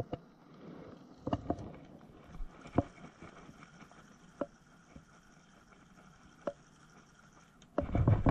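Scattered light clicks and knocks from handling a spinning rod and reel, with a faint steady high whine through the middle. Near the end, loud rubbing and clattering as the hands work the reel right next to the microphone.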